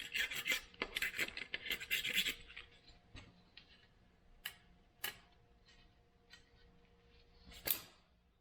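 Knife blade scraping along an aluminium window-screen frame: a dense run of scratching for about two seconds, then scattered clicks and taps, with a louder knock near the end.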